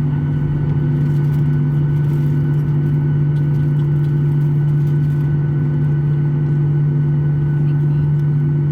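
Steady cabin drone inside a Boeing 737-800 on the ground after landing, with a strong low hum and fainter higher tones that hold unchanged.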